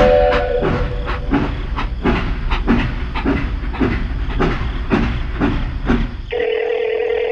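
Battery-powered toy steam locomotive running on plastic track: a low motor rumble with regular chuffing clicks about three a second. Its whistle note dies away in the first half second, and a steady whistle-like tone comes in about six seconds in.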